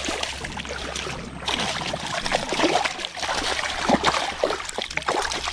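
Rushing creek water with irregular splashing that grows busier and louder about a second and a half in.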